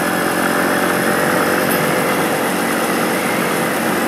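Motorcycle engine running steadily while riding along, picked up by a bike-mounted camera together with a steady rush of wind noise.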